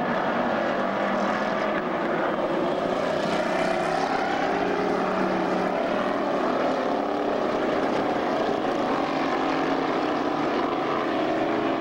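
Engines of several dirt-track stock cars racing around the oval. They make a continuous loud drone whose pitch rises and falls as the cars go through the turns and down the straight.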